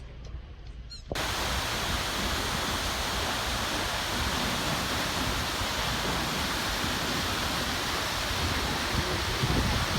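Waterfall's steady rushing water, cutting in abruptly about a second in.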